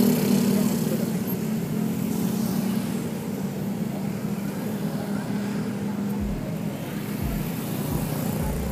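Steady road-traffic noise with a vehicle engine humming, and a few low thumps in the second half.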